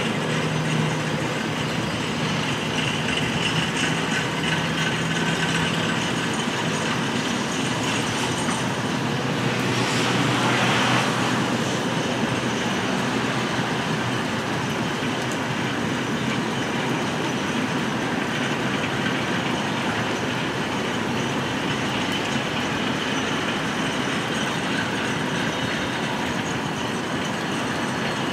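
Ribbon rail train rolling past: small rail dollies carrying long sticks of welded ribbon rail rumble steadily along the track, swelling briefly about ten seconds in, with rain falling.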